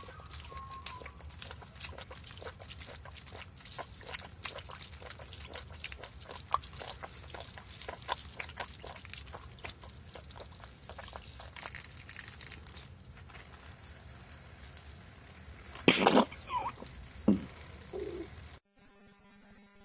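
Koala drinking water: a long run of small wet clicks and drips. Then one short, loud sneeze about sixteen seconds in, and a smaller burst a second later. Music takes over near the end.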